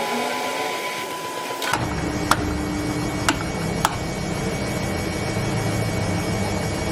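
Washing machine running with a steady mechanical hum. About 1.7 s in the sound changes abruptly to a lower rumble, with three or four sharp clicks.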